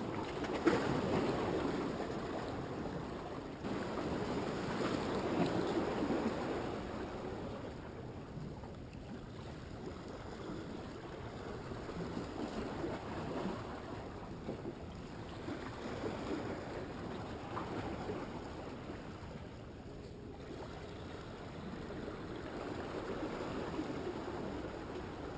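Ocean surf washing on the shore, a steady rush of water that swells and fades every few seconds, with a single short knock about a second in.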